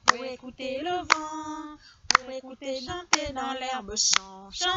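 A woman singing a French song a cappella, clapping her hands in time about once a second.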